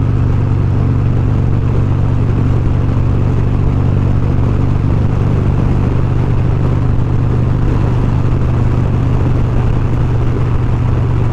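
2020 Harley-Davidson Road Glide Special's Milwaukee-Eight 114 V-twin running at a steady cruise, a constant low drone with no change in pitch.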